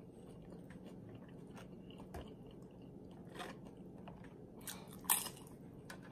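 Faint chewing of tortilla-chip nachos, with a few short sharp crunches, the loudest about five seconds in.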